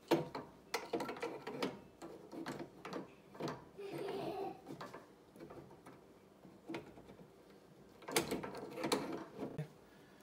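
Adjustable wrench clicking and knocking against a metal gas line fitting as it is tightened onto a gas range's surface burner valve. The clicks come in irregular clusters: at the start, again a few seconds in, and once more about eight seconds in.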